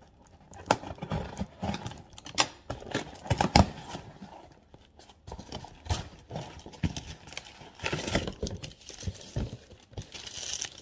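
A taped cardboard box being handled and opened by hand: irregular knocks, taps and scrapes of cardboard. Near the end, the rustle and crinkle of the plastic packaging inside.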